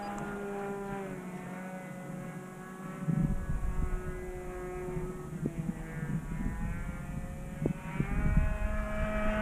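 Radio-controlled model airplane's glow engine running at high speed in flight, its pitch falling and then rising again as the plane passes.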